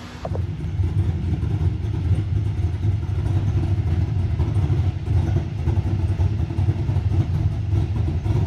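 A low-pitched engine running steadily, with a fast, even pulse in its note.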